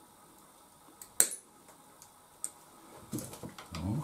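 Quiet workshop room tone with one sharp click about a second in and a fainter tick later, from small tools or parts being handled at the workbench. A brief low sound follows near the end.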